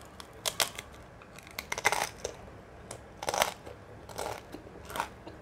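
A cracker being bitten and chewed: crisp crunches coming in clusters about once a second.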